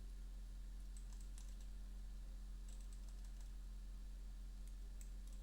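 Low steady electrical hum with a few faint, short clicks scattered through it.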